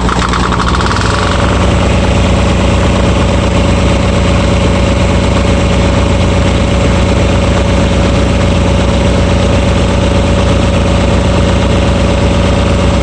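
Small diesel engine of a RigMaster truck auxiliary power unit running steadily with a pulsing rhythm. A steady whine joins in about a second and a half in.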